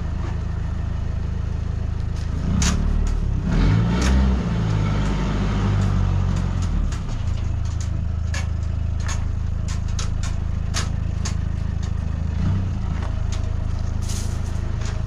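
Pickup truck's engine running at low revs as the truck reverses, louder and shifting in pitch for a few seconds about three seconds in, with scattered sharp clicks throughout.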